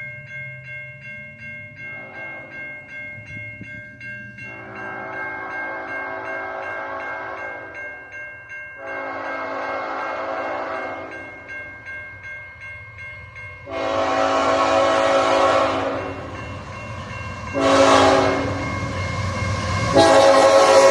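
Nathan Airchime K5HLA five-chime locomotive horn sounding a chord in a series of blasts: several long ones and one short one, louder each time as the train comes on. A steady rapid ringing, about three strokes a second, goes on behind.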